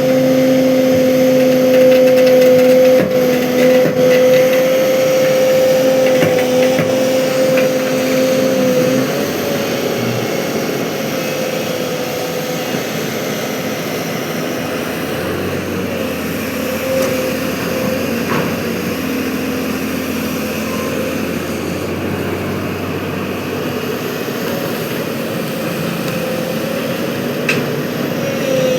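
Excavator engine running under work, with a steady whine over the engine noise that eases about nine seconds in.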